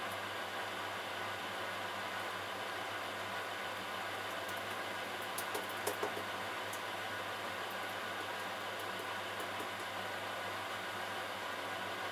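Steady mechanical hum with a few light clicks a little past halfway.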